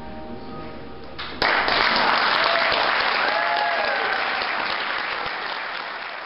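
The accompaniment's final notes die away, then about a second and a half in an audience bursts into loud applause. A cheer rises over the clapping, which slowly tapers off.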